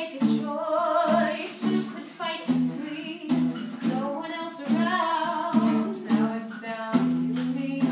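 Women singing a musical-theatre song, accompanied by a strummed acoustic guitar. A long held note comes near the end.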